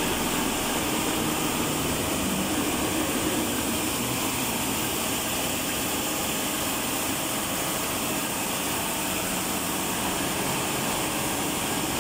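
Zichai marine diesel engine running steadily, a loud, even mechanical din with no breaks.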